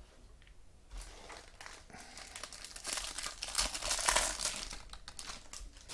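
Plastic wrapper of a trading card pack being torn open and crinkled by hand: a dense, crackling rustle that builds from about a second in, is loudest toward the middle, and thins out near the end.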